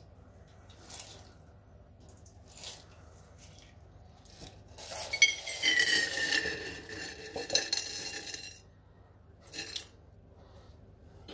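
Muddy water poured from a rock-tumbler barrel into a plastic pan, with the stones and rough opal inside clinking as the barrel is tipped. The pouring starts about five seconds in and lasts about three and a half seconds, with a few light knocks before it and one after.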